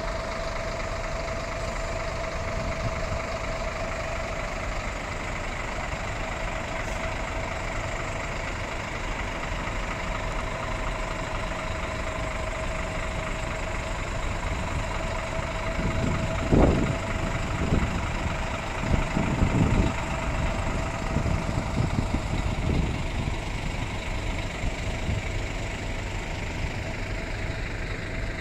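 Diesel bus engine idling steadily, with a constant whine running through it. A few louder, uneven low rumbles come a little past halfway.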